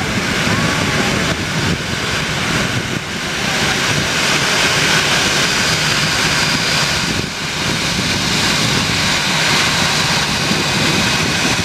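Jet engines of a LAN Airbus A320-family airliner running at taxi power: a steady rush with a faint high whine.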